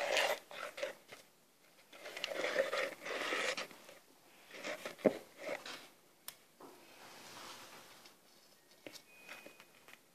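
Squishing and scraping as a tarallo is pressed and turned by hand in wet glaze in a plastic bowl, in uneven bouts, with a sharp click about five seconds in and another a second later.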